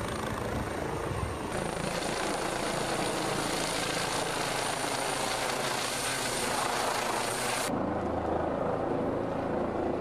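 Rescue helicopter flying overhead, its rotor and engines making a steady, dense whirring noise. About three-quarters of the way through the sound abruptly turns duller as the high end drops away.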